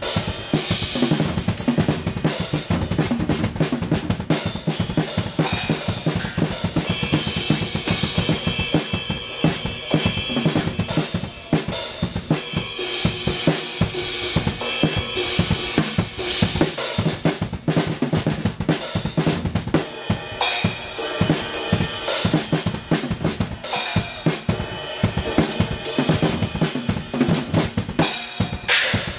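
Acoustic drum kit played hard and without a break: dense kick and snare strokes with hi-hat and cymbal crashes.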